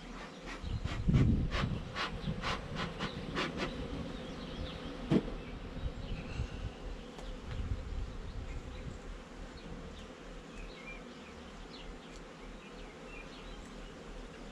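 Honey bees buzzing around an opened hive. A quick run of sharp clicks and knocks comes in the first few seconds, with a dull low thump about a second in, and a single sharp knock about five seconds in.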